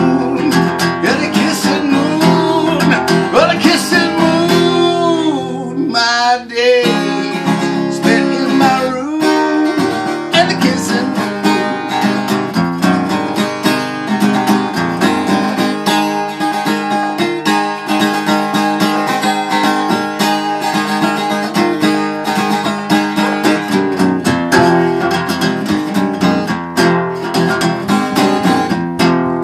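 Yamaha cutaway acoustic guitar strummed steadily in chords, played as an instrumental break.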